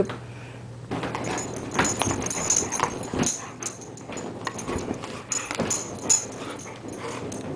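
Basset hound puppy making small play noises and scuffling on the bedding while she snaps at and tugs a rope toy. The noises are irregular and start about a second in.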